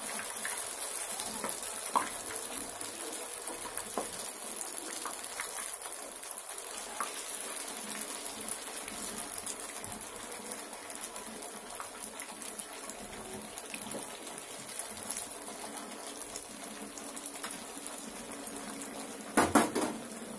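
Malpuas frying in ghee in a non-stick frying pan: a steady sizzle, with a few light taps of a wooden spatula against the pan in the first few seconds and a brief louder sound near the end.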